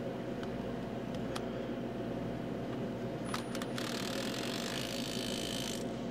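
Impact wrench running for about two seconds, about four seconds in, driving a rear brake caliper bracket bolt tight. A few clicks come just before it, over a steady shop hum.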